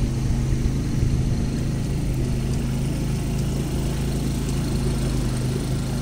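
Motorboat engine running steadily at an even pitch while the boat cruises along the river.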